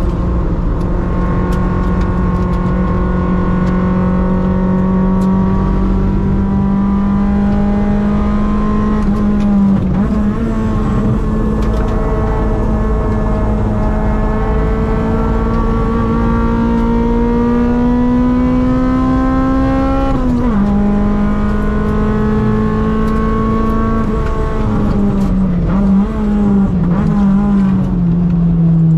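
Toyota AE101's 4A-GE 20-valve 1.6-litre naturally aspirated four-cylinder at high revs on track, heard from inside the cabin. The note climbs slowly through a long pull in one gear, drops sharply at an upshift about two-thirds of the way in, then wavers and falls near the end as the revs come down.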